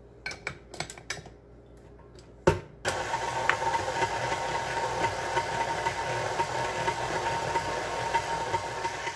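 A few clicks and a sharp knock as the flat beater is fitted and the mixer head lowered. About three seconds in, a KitchenAid Artisan stand mixer starts and runs steadily with a steady whine, its flat beater mixing cream cheese, butter and powdered sugar into frosting in a stainless steel bowl.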